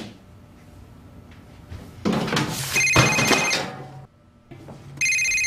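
Telephone ringing twice with an electronic trill: the first ring comes about three seconds in, under a louder burst of noise, and the second starts near the end.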